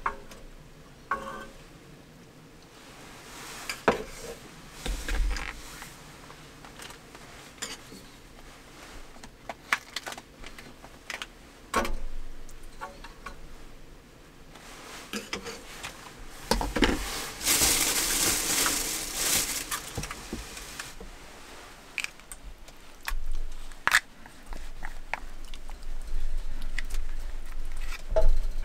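Chopsticks clicking and tapping against a small metal pot and plastic food containers as food is added to a hotpot, with a few seconds of louder plastic rustling a little past the middle.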